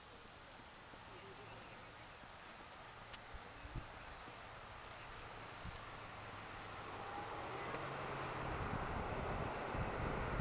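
Faint, steady chirping of insects in the open countryside. A broad rushing noise, like wind, builds over the last few seconds.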